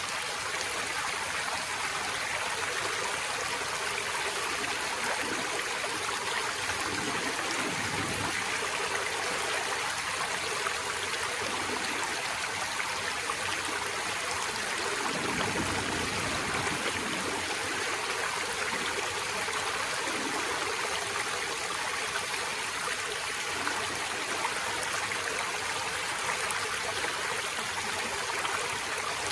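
Forest stream flowing steadily over rocks, an even rushing and trickling of water, with a couple of brief deeper gurgling surges.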